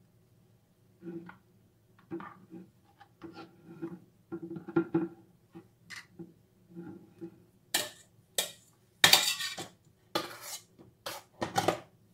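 A metal palette knife scraping and tapping as it spreads whipped cream over a sponge cake on a cardboard cake board. Near the end come louder, sharper scrapes, the blade working cream out of a stainless-steel mixing bowl.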